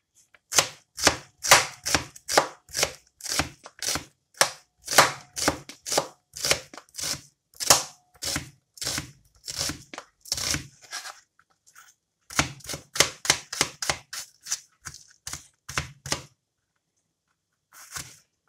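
Kitchen knife slicing an onion thinly on a plastic cutting board: a quick run of cuts, about two to three a second, each knocking on the board. The cuts break off briefly about eleven seconds in, then a second run follows, with one last cut near the end.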